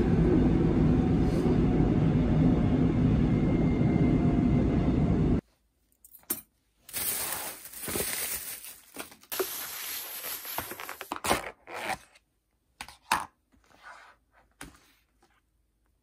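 Steady low rumble of a moving train, which cuts off sharply about five seconds in. Then a plastic takeout bag rustles and crinkles, and plastic food containers clatter and scrape as they are unpacked and opened, in irregular short bursts.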